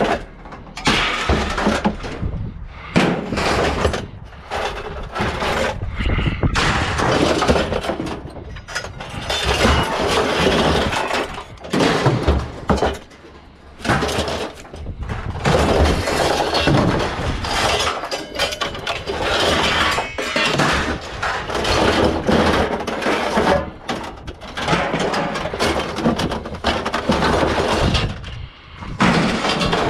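Pieces of scrap metal tossed by hand from a trailer onto a scrap pile: a continuous, irregular run of clanking and crashing impacts.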